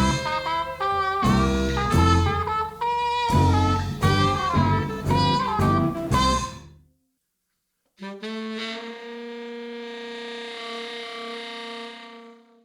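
Outro music: an upbeat jazz-style tune with a pitched melody over drums, which stops about seven seconds in; after a second's silence, one long held final note rings until the end.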